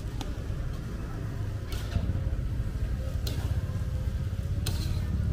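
Steady low rumble of motor traffic, with three light clinks of a metal spatula against a wide steel pan as fried rice is scooped.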